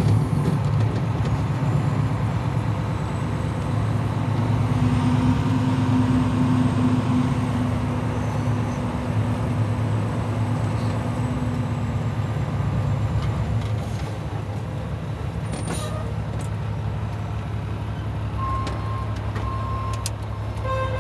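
International truck's diesel engine running steadily, heard from inside the cab as a low drone, with a couple of sharp clicks about three-quarters through. Near the end the truck's reversing beeper starts, about one beep a second, as it is put into reverse.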